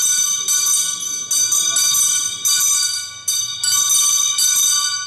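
Altar bells shaken in a series of rings, each shake setting off several clear, high, ringing tones that carry on between shakes. They mark the elevation of the chalice at the consecration.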